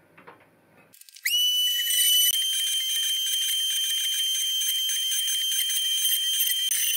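The 800 W spindle motor of a 3018 CNC router spins up about a second in. Its high whine rises quickly, then holds steady while the bit engraves the oak.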